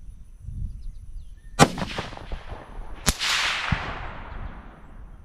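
A .204 Ruger bolt-action rifle shot: two sharp cracks about a second and a half apart, the first the loudest, the second trailing off in a long rolling echo.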